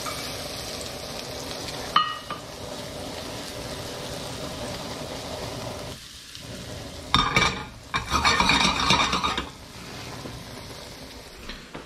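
Morel mushrooms sizzling in hot butter in a stainless-steel skillet as they are stirred, with a sharp clink about two seconds in. The sizzle drops about six seconds in, and louder rough handling noise follows for about two seconds.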